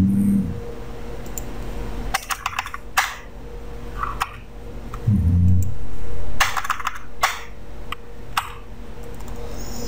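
Computer keyboard keys clicking in quick runs with a few single taps, as Backspace and the hyphen key are pressed while editing text. Two short low hums come at the start and about five seconds in.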